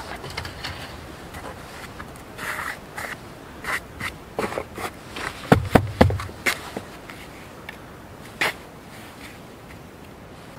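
Black plastic bucket of sifted sand handled on bare ground: a series of scrapes and knocks, with two dull thumps about halfway through as the full bucket is gripped and shifted, and one more knock later.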